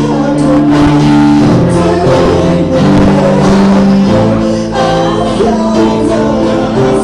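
A band playing a song with singing: held sung and instrumental notes over drums and cymbals.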